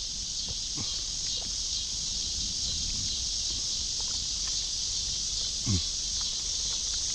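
Steady, high-pitched chorus of insects. A short, low falling sound comes about two-thirds of the way through.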